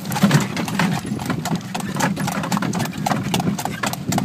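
Hooves of a horse pulling a cart clip-clopping on a paved road, a steady run of hoof strikes over a low, even rumble.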